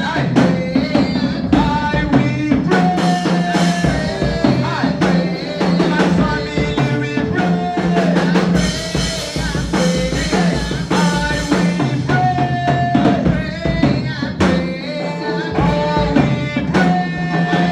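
Gospel worship music with a steady drum-kit beat, a sustained bass line and melodic instruments playing.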